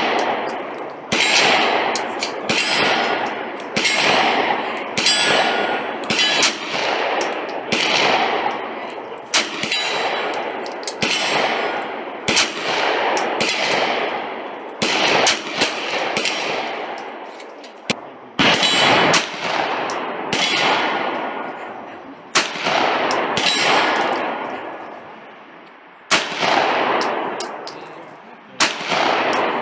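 Pistol shots fired one at a time, about one every second or two, each crack trailing off in a long echoing ring.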